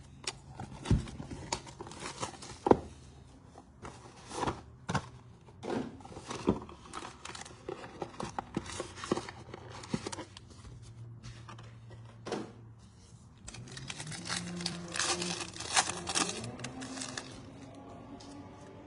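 Plastic wrapping on a hobby box of football trading cards being crinkled and torn open, with scattered sharp rips and clicks and a busier stretch of rustling near the end.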